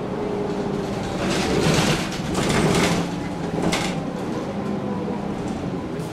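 MAN NG 313 articulated city bus running, its engine giving a steady hum, with loud bursts of hissing from about a second in to the middle and a short sharp hiss just after.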